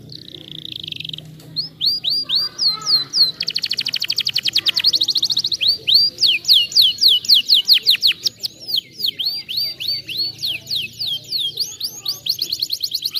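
Domestic canary singing a long, varied song of quick rising and falling whistled notes, with a very rapid trill about three seconds in.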